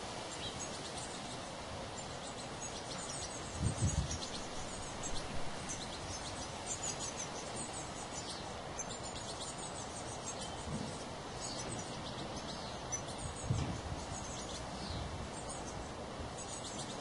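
European goldfinches chirping: many short, high, thin calls in quick runs over a steady outdoor hiss. A few dull low thumps stand out, the loudest about four seconds in and again about thirteen seconds in.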